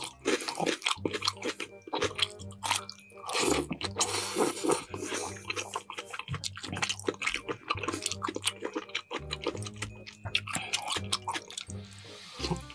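Background music over close-miked chewing of chicken drumsticks, with many short clicks from the mouth.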